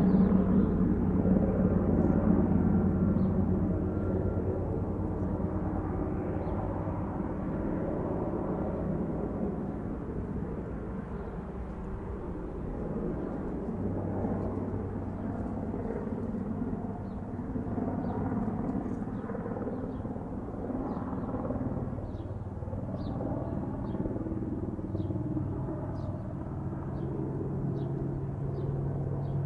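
Helicopter circling: steady rotor chop over a low engine hum. It is loud at first and fades over the first ten seconds or so as it moves off, then slowly grows louder again as it comes back round.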